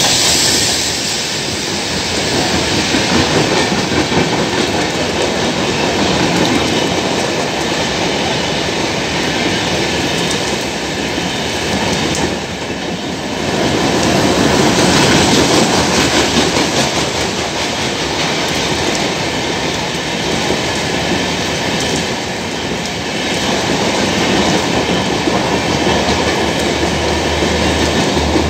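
Howrah Gitanjali Express passenger train passing close by at speed: a continuous rush of wheel-on-rail noise with a clickety-clack from the coaches' wheels over the rail joints, swelling and easing slightly as the coaches go by.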